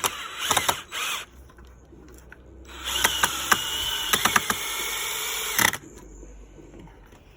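Power drill driving screws into wood: a couple of short bursts, then one steady run of about three seconds that stops abruptly.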